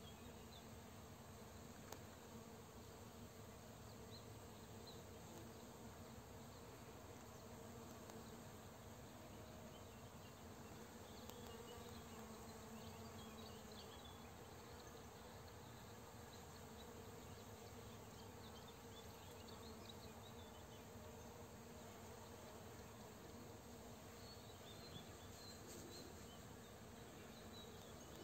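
Honeybees foraging on flowering oilseed rape, buzzing in a faint steady hum that grows a little stronger around the middle, with a few faint high chirps.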